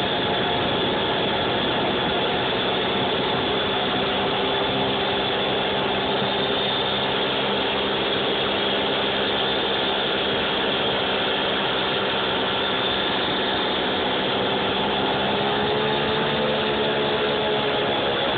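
Mini pocket bike's small engine running at a steady, low throttle, its pitch rising a little about fifteen seconds in.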